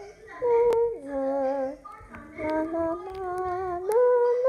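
A child singing a slow tune in long held notes, each lasting about a second, stepping up and down in pitch.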